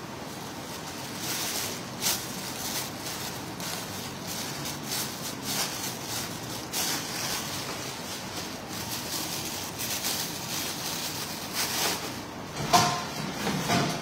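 Scattered rustling and knocking of things being handled close to the microphone, over a steady background hiss, with a louder knock near the end.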